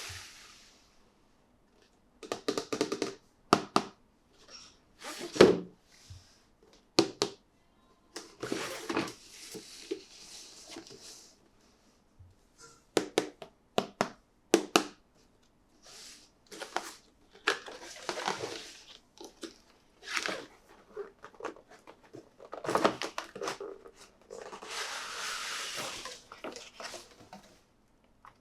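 Toy packaging being unboxed by hand: scattered clicks and knocks of plastic and cardboard, with two longer stretches of crinkling plastic, about eight seconds in and again near the end.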